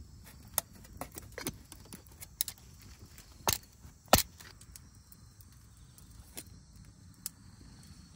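Titanium cookware being handled while cooking: scattered light metal clicks and taps, with two sharper knocks about three and a half and four seconds in.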